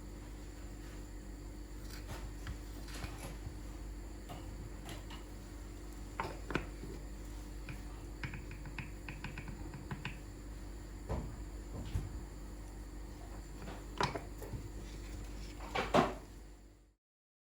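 Scattered light clicks and knocks over a steady low hum, the loudest knock near the end, after which the sound cuts off suddenly.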